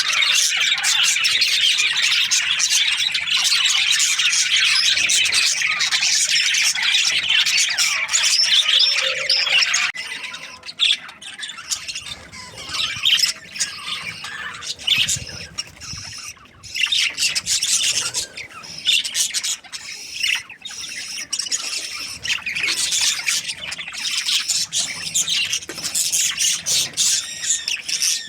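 A flock of budgerigars chattering and squawking: a dense, continuous chatter for about the first ten seconds, then it suddenly thins to scattered separate calls.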